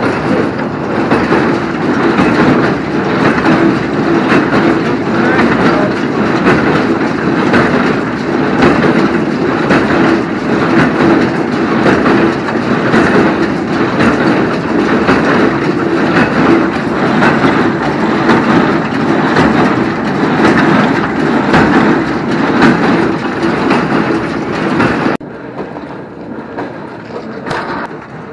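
Tractor-driven hay baler running, a loud rhythmic mechanical clatter over the engine, until the clatter drops off sharply about 25 seconds in, leaving a quieter running sound.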